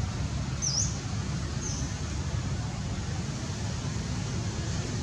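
Outdoor background: a steady low rumble, with two short high chirps in the first two seconds.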